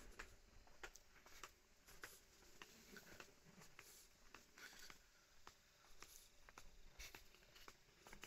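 Faint footsteps on a concrete footpath, short light clicks at about two a second.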